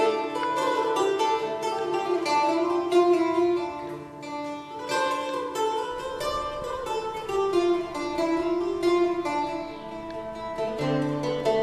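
Instrumental background music on plucked strings: a continuous run of quick picked notes.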